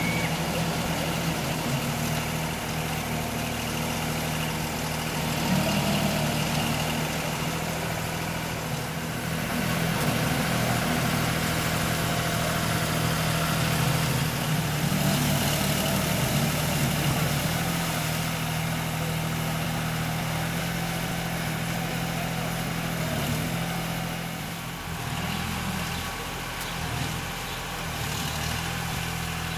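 Engine of an Alpha Boats FX6 aquatic weed harvester running steadily as the paddle-wheel craft moves through the water. Its note wavers and dips briefly about three-quarters of the way through.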